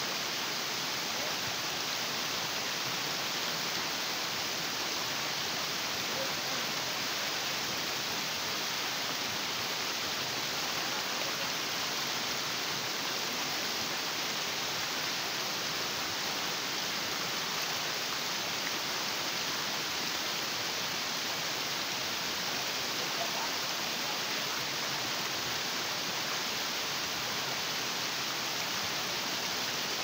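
Water of a small rocky stream flowing in shallow cascades down sloping rock slabs: a steady, even rush of water that does not let up.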